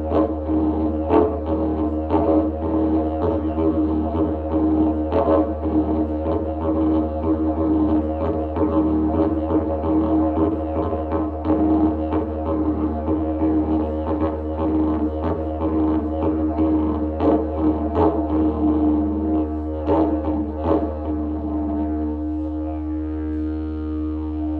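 Didgeridoo played as a continuous low drone with a rhythm of pulses and accents pushed into it. The pulses stop a few seconds before the end, and a plain held drone carries on.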